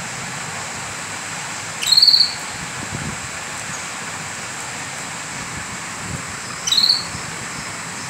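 Caged canary giving two short calls about five seconds apart, each a quick downward sweep ending in a brief high note, over a steady hiss.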